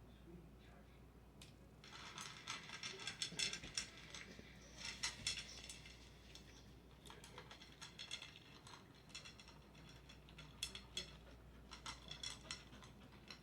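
A dog eating from a food dish: bursts of quick clicking and clinking that start about two seconds in and come and go.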